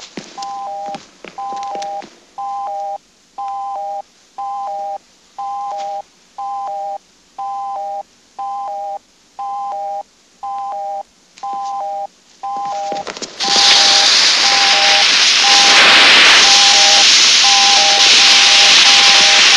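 Electronic beeping signal: a short falling three-note beep repeating about once a second. About thirteen seconds in, a loud steady hiss starts and covers it, with the beeps still faintly heard under the hiss.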